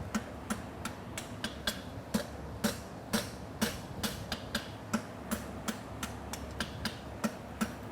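Farrier's forging hammer striking a hot steel horseshoe bar on the anvil, knocking the corners off the stock: steady, evenly spaced blows at about two a second.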